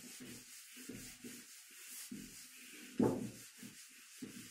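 Whiteboard eraser rubbing across a whiteboard in a series of short back-and-forth strokes, wiping off marker writing; one stroke is louder about three seconds in.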